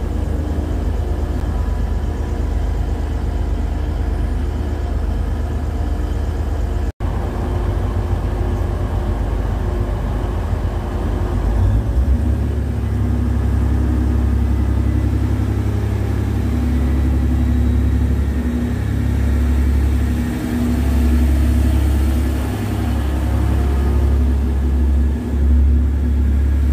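Class 185 diesel multiple unit pulling out of the station, its diesel engines running under power with a heavy low rumble that swells about halfway through as it picks up speed.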